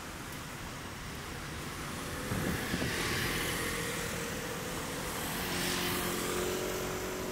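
A motor engine passing by, growing louder from about two seconds in and holding a steady hum through the rest, over a constant outdoor noise bed.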